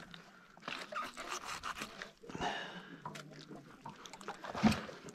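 Filleting knife scraping and crunching as it cuts a fillet off a largemouth nannygai on a plastic cutting board, with a sharper knock near the end.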